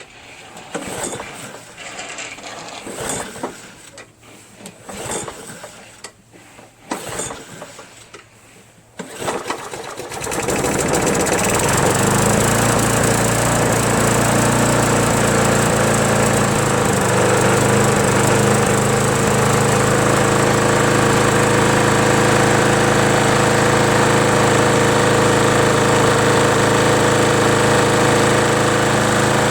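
Recoil starter pulled on a Craftsman push mower's Briggs & Stratton Quantum single-cylinder engine. It catches after four or five pulls, about ten seconds in, and then runs steadily.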